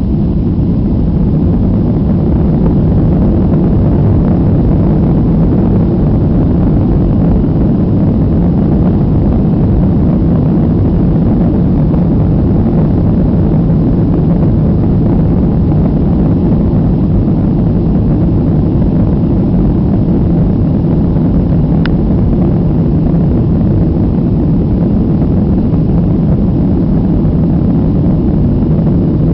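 Airliner's jet engines at takeoff power, heard from inside the passenger cabin as a loud, steady, deep rumble. There is one faint tick about two-thirds of the way through.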